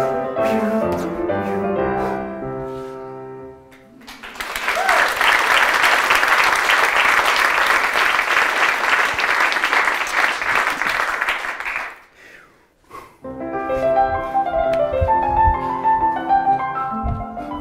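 Solo piano music, which fades out about three and a half seconds in; an audience then applauds for about eight seconds, and the piano starts again about a second after the clapping stops.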